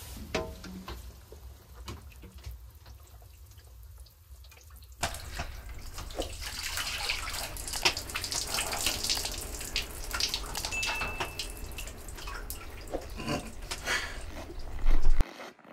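Water poured from a ladle over a person, splashing and dripping onto the sauna's wooden bench and floor. After a quieter start with a few drips, it becomes a steady run of splashes about five seconds in.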